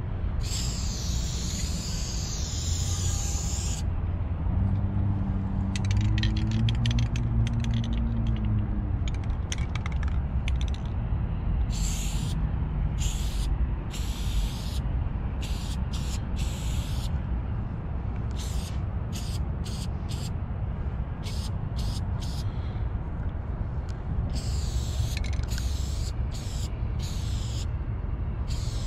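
Aerosol spray paint can hissing: one long spray of about four seconds, then a run of short bursts. A steady low rumble lies underneath.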